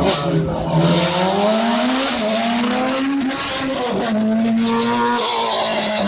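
Hill-climb race car's engine revving hard as it climbs the course. Its pitch rises and falls with gear changes, with a short drop about four seconds in.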